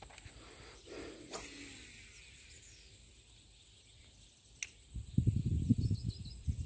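Insects buzzing steadily at a high pitch. From about five seconds in, a loud run of low, irregular thumps and rumbles.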